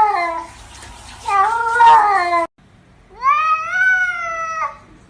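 Domestic cat meowing: a meow trailing off about half a second in, another about a second later that cuts off abruptly, then a longer meow that rises in pitch and holds.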